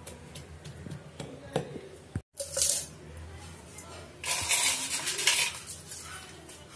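A wooden muddler knocking a few times as it presses mint leaves, lime and sugar in the bottom of a glass mug, then pieces of ice dropped into the glass, clattering and clinking, with a short burst soon after two seconds in and the loudest, longest clatter at about four to five and a half seconds in.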